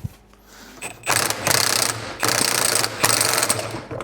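Half-inch-drive impact wrench hammering in three bursts of about a second each, starting about a second in. It is driving the screw of a bearing puller to pull a bearing off a differential carrier.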